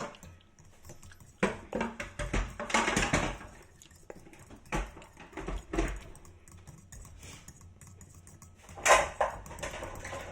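Irregular clinks and knocks of kitchen utensils and dishes being handled, busiest in the first few seconds, with a few more later.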